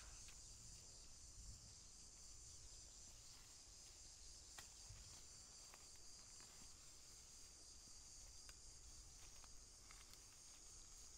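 Faint, steady, high-pitched chorus of insects such as crickets, with a few faint scattered clicks.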